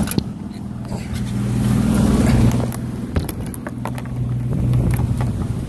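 Yamaha 225 outboard motor running steadily with the boat under way, a low drone, with scattered sharp knocks and clicks over it.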